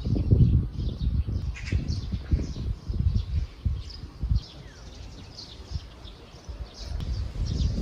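Birds chirping in short calls, with low knocks and rubbing from a steel ruler and marker pen being handled on a stainless steel plate, heaviest in the first few seconds and again near the end.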